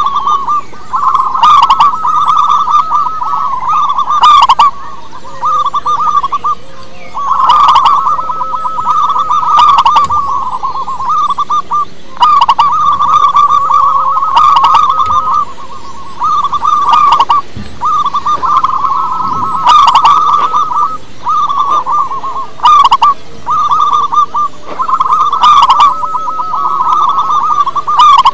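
Zebra dove (perkutut) cooing: a rapid, rattling, stuttering song, given phrase after phrase with short pauses between.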